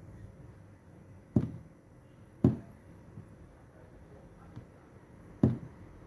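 Three short taps of a fingertip on a smartphone's touchscreen as it lies on a desk, the first two about a second apart and the third some three seconds later.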